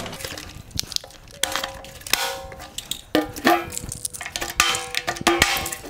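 A stainless steel vacuum drum and its plastic base being handled and fitted together: a quiet start, then a series of knocks and clanks, several with a short metallic ring.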